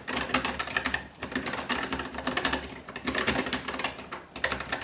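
Fast typing on a Keychron K3 Pro low-profile mechanical keyboard with brown switches: a rapid, dense stream of key clicks with a couple of brief pauses.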